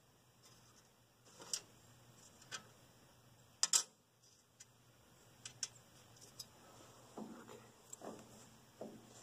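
Small metal clicks and clinks of washers and nuts being fitted by hand onto the carburetor mounting studs of a 1955 Ford 800-series tractor. There is a louder double click a little under four seconds in, and duller knocks near the end.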